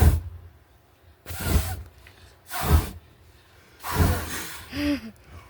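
Short gusts of breath or air striking the microphone, five in a row about a second apart, with a brief voiced murmur near the end.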